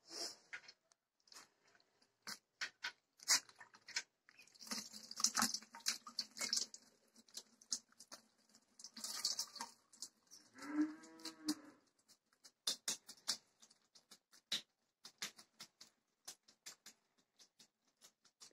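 Hands scooping and squeezing butter in the buttermilk of a churn drum, with wet splashing and squelching, then a steady run of drips falling back into the liquid. A cow moos once, about eleven seconds in.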